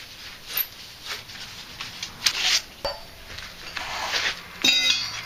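Copper pipe and a tubing cutter being handled: irregular short scraping strokes and a few metallic clinks, with a sharp click about three seconds in. Near the end sanding cloth rubs on the pipe.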